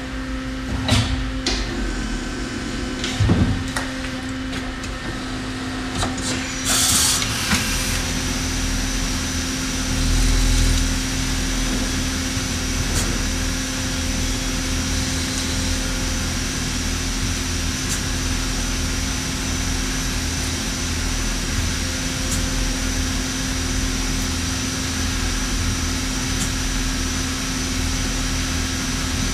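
Miyano LM-11 four-spindle CNC lathe starting a cycle: several clicks and knocks, a short hiss about seven seconds in, then the machine running steadily with a hum and a low rumble as its two turrets work the parts.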